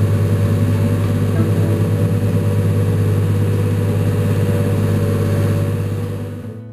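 Canal boat's engine running steadily with a low, even hum, fading out near the end.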